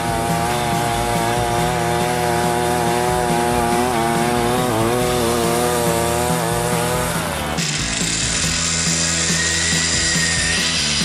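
Small petrol engine of a compact homemade tracked snow vehicle running under load, its pitch wavering and then dropping about seven seconds in. The sound then changes abruptly to a hissier, closer engine-and-track sound with a thin whine near the end.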